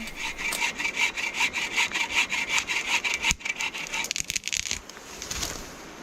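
Hand saw cutting through spruce in quick, even back-and-forth strokes, which stop a little before the end.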